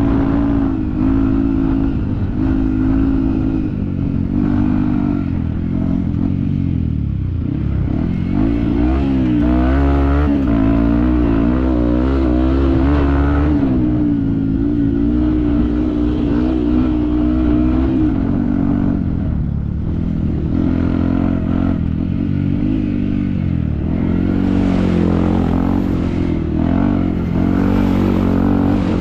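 Yamaha WR155 dirt bike's single-cylinder four-stroke engine running under constantly changing throttle. Its pitch rises and falls, with quick wobbles around ten seconds in and dips near seven and twenty seconds.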